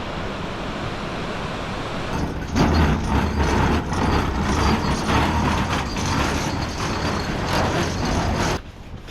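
Roar of rushing water at a waterfall, a dense even noise that grows louder about two and a half seconds in and cuts off abruptly near the end.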